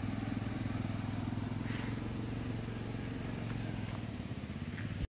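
A motorcycle engine running steadily at low speed, with a fast, even putter.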